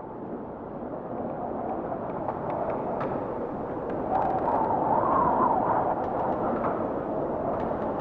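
Lake Michigan waves surging and breaking against an icy shore: a rushing sound that swells to its loudest about halfway through, with faint small clicks over it.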